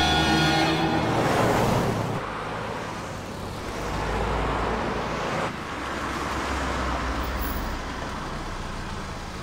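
Road traffic: vehicles driving past, swelling and fading as they go by. About five and a half seconds in the sound changes abruptly to a car's engine running low and steady. Music fades out within the first second.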